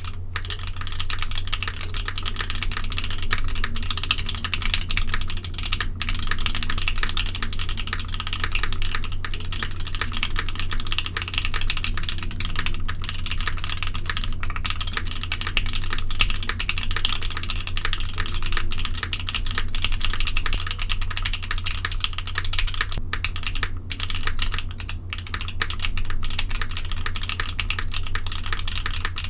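Continuous typing on a custom mechanical keyboard with lubed Gateron CJ linear switches on a polypropylene plate and GMK keycaps: a fast, steady stream of key clicks.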